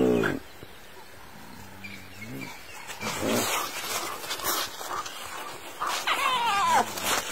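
African wild dogs mobbing a spotted hyena: a scattered run of sharp, high-pitched yelps and squeals, with a wavering, falling squeal about six seconds in.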